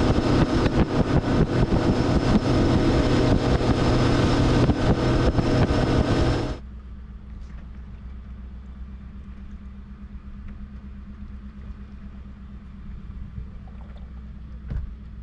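Bass boat outboard motor running at speed, with wind and water rush on the microphone. About six and a half seconds in, the sound drops suddenly to a quiet, steady low hum of the outboard idling.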